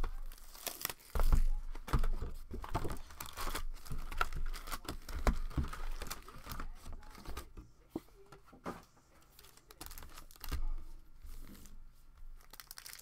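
Packaging of a 2019-20 Panini NBA Hoops hobby box being torn open and its plastic-wrapped trading card packs crinkling and knocking together as they are handled. It comes in irregular rustles and taps, busier in the first half, with a quieter stretch a little past the middle.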